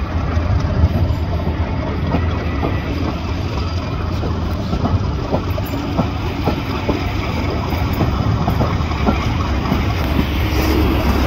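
The English Electric diesel engines of a Class 50 and a Class 37 locomotive running under power as they haul a train of coaches out, with a steady low hum. Scattered clicks come from the wheels passing over pointwork.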